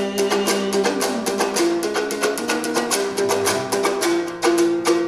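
Kyrgyz komuz, a three-stringed fretless lute, strummed fast and evenly over steadily ringing held notes in an instrumental passage without singing.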